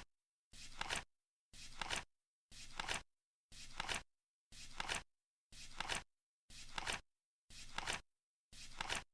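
Flip clock cards flapping over once a second, like a seconds tick: each flip is a half-second rustling flap that ends in a sharp click, with dead silence between.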